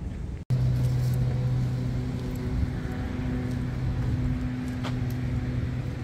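A steady low engine hum, starting abruptly about half a second in, with a short dip about four and a half seconds in.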